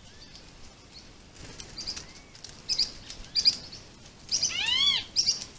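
Wild birds calling: scattered short high chirps, and near the end one louder slurred call that rises and falls in pitch.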